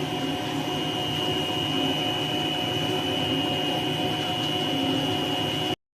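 Snack-food extrusion line machinery running steadily, a motor hum with a constant high whine over it. The sound breaks off abruptly near the end.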